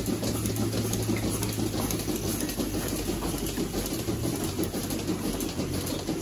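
Milking parlour machinery running: a steady low hum with a constant hiss.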